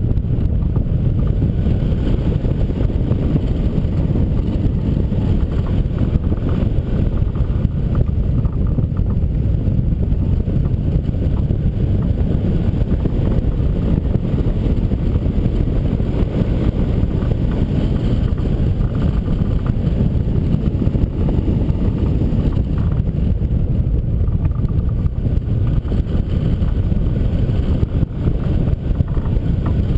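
Rushing air of a hang glider in flight buffeting the microphone: a steady, low rumble of wind noise.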